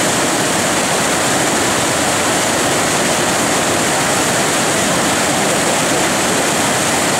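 Steady, unbroken rush of white water from a large tidal rapid's standing wave breaking on a big flood tide.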